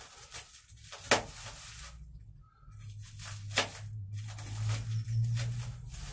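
Pruning shears snipping and cutting through a parcel's taped paper-and-plastic wrapping, with crinkling and rustling of the wrapping. Two sharp snips stand out, about a second in and again two and a half seconds later.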